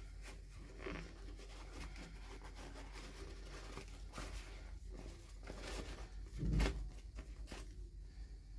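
Toy packaging being handled and torn open: scattered rustling and ripping sounds, with a soft thump about six and a half seconds in.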